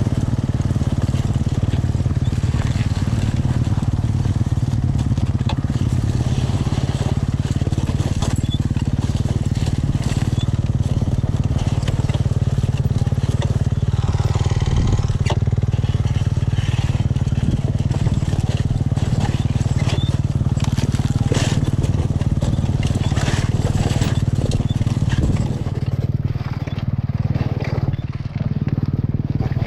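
Dirt bike engine running steadily on a rough, washed-out dirt trail, with tyres crunching and clattering over rocks and ruts. The engine eases off and the sound drops about four seconds before the end.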